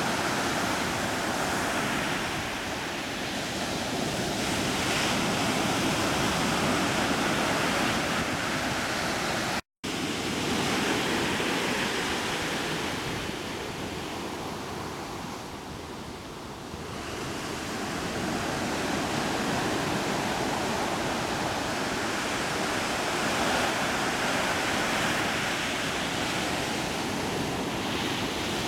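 Ocean waves and wind making a steady rushing noise, with a gusty low rumble of wind on the microphone. The sound cuts out completely for a moment about ten seconds in.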